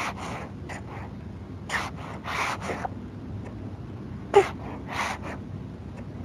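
Short breathy gasps and breaths from a person, several in a row, with the loudest about four and a half seconds in. They come from an advertisement's soundtrack played back through a video call.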